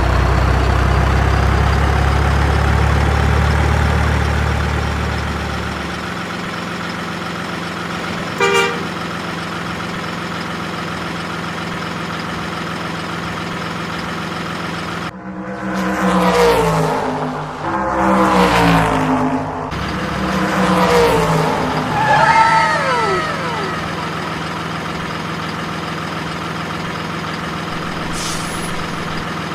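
A steady truck engine drone with horn toots. A louder stretch of shifting sounds comes about halfway through, ending in a few quick falling tones.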